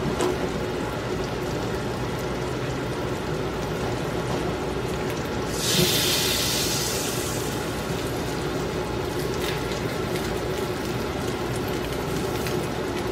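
Pancake batter frying in hot oil in a nonstick pan, a steady sizzle with a low hum underneath. About six seconds in, the sizzle flares louder and hissier for a second or two as a spatula works at the edge of a pancake.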